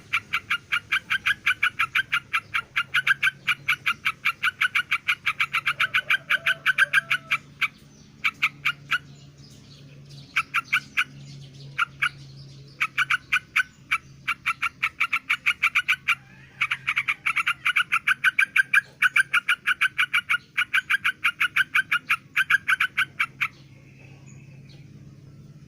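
Yellow-vented bulbul (terucuk) calling in long runs of short, sharp notes, about four or five a second, broken by brief pauses. Kept up like this, it is the rapid calling taken as a sign that the bird is in breeding condition.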